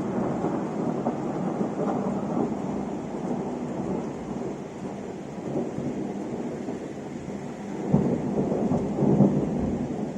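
Thunder rumbling over steady rain in a thunderstorm, with a louder swell about eight seconds in.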